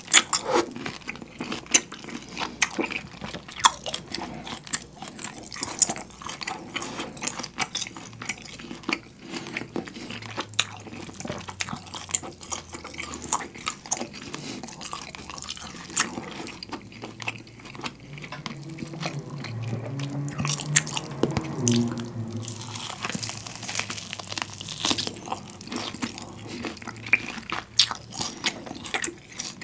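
Close-miked chewing of a thick, rare-cooked beef steak, with many wet mouth clicks. A low hum from the eater comes in partway through.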